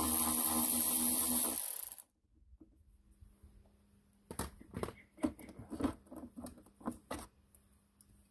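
Cordless electric ratchet running steadily, backing out a 10 mm bolt on the jet-pump linkage, then cutting off about two seconds in. After a short pause comes a run of light clicks and taps as the loosened small parts are handled.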